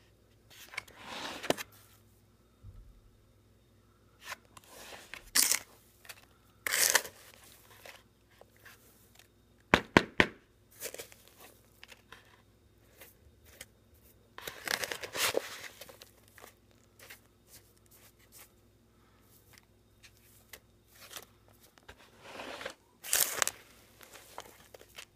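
Irregular bursts of rustling and crackling a few seconds apart, with a sharp double click about ten seconds in.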